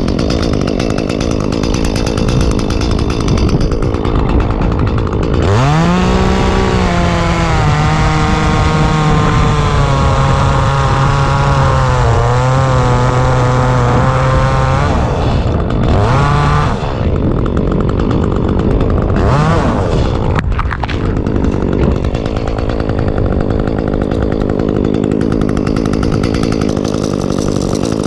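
Echo chainsaw running hard at high revs. About five seconds in its engine note rises and holds, sagging slightly, until about fifteen seconds. Two shorter rises follow.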